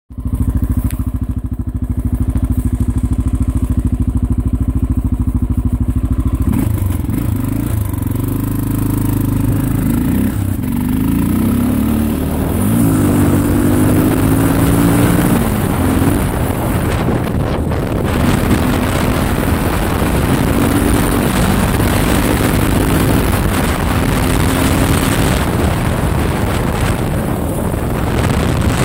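Honda XR650L's single-cylinder four-stroke engine idling steadily, then pulling away about six seconds in, its pitch rising and falling again and again as it accelerates and shifts. Wind noise on the microphone builds as speed picks up.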